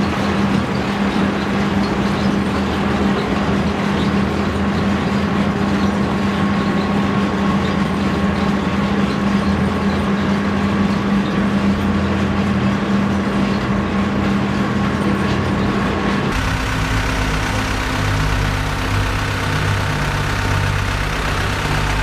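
Heavy underground mining machinery running with a loud, steady drone. About sixteen seconds in, the sound changes abruptly to a deeper hum.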